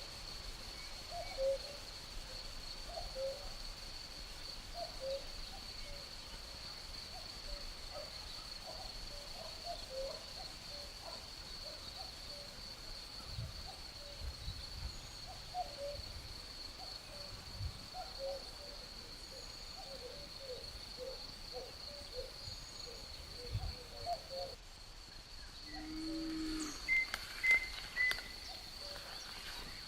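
Common cuckoo calling over and over in low, hooting two-note calls, over a steady high trill of crickets. Near the end the cricket trill stops and a few short, higher bird chirps come in.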